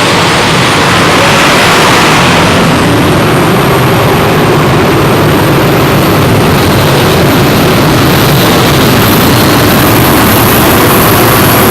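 A pulling tractor's engine running flat out during a pull, loud and steady, with a thin high whine that climbs in the first second or two and then holds.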